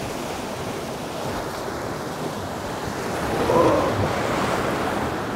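Sea surf washing and breaking against the rocks of a jetty, with a louder wave breaking about three and a half seconds in.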